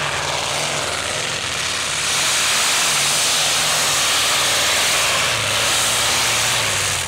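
Modified pulling tractor's engine running flat out under load as it drags the weight sled, a loud, dense engine noise whose low note wavers, getting louder about two seconds in and dropping away right at the very end.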